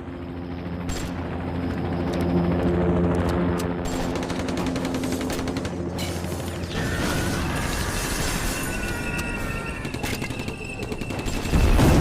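Sound-effects mix from a surround-sound test: a low mechanical hum fades in, overlaid with sharp clicks and fast rattling, and higher steady whining tones join about seven seconds in. A heavy boom hits near the end.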